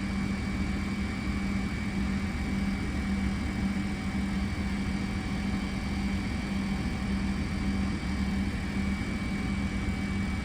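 Steady cockpit noise of a Fokker 100 holding on the runway with its Rolls-Royce Tay turbofans at idle: a constant low hum with a thin high whine over an even rushing hiss.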